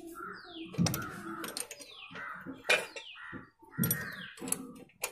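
A bird calling over and over, a short falling whistle about once a second. Sharp metallic clicks come in between, the loudest a little under three seconds in, as an Allen key works the fork leg's axle pinch bolts, along with a couple of low thuds.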